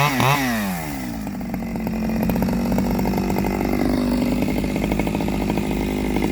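Stihl 009L two-stroke chainsaw revving high, with its pitch swinging up and down, then dropping back to a steady idle about a second in. Its owner judges it to be getting too much fuel at the top end on the standard single-screw carburettor.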